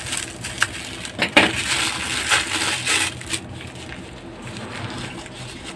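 Scissors snipping through a crinkly foil-plastic snack wrapper, with several sharp crackles in the first three seconds. After that comes softer rustling as the paper inside is unfolded by hand.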